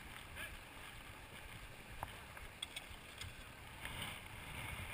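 Shallow river current flowing over a rocky bed in a steady, faint wash, with a low rumble underneath. A few faint clicks come about two to three seconds in.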